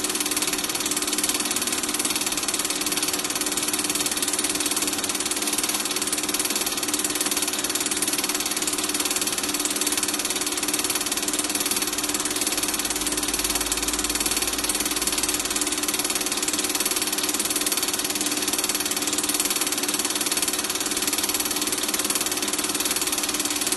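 Super 8 film projector running: a steady mechanical whir and hum under constant hiss.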